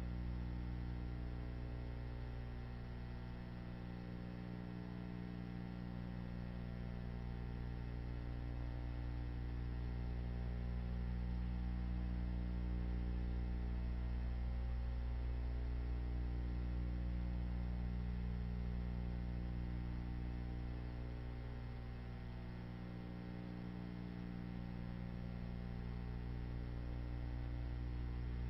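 Steady electrical mains hum, a stack of low droning tones, slowly swelling and fading in loudness with no other sounds on top.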